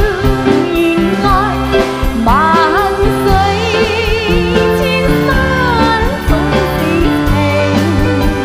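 Symphony orchestra playing live, with sustained chords and a high melody line that wavers with vibrato.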